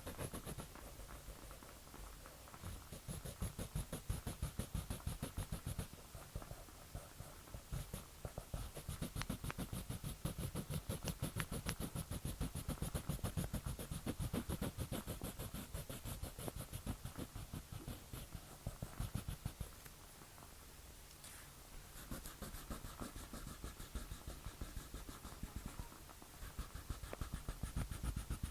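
Drawing tool scratching across paper in rapid strokes, several a second, easing off about two-thirds of the way through and then resuming, with a dog snoring underneath.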